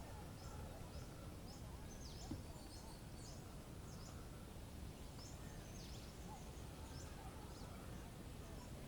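Small songbirds giving short, high chirps, about a dozen scattered through, over a steady low rumble of wind.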